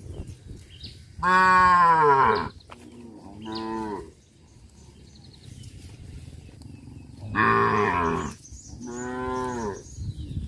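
Cows mooing: four calls, a long loud one about a second in and another about seven seconds in, each followed shortly by a shorter, quieter one.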